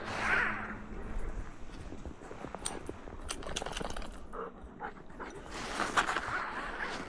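A Bernese Mountain Dog's snuffling and breathing, mixed with short crunches of footsteps in fresh snow.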